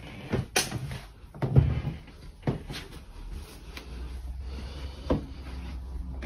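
Interior door being handled and opened: clicks and knocks of the handle and latch, with a heavier low thump about one and a half seconds in.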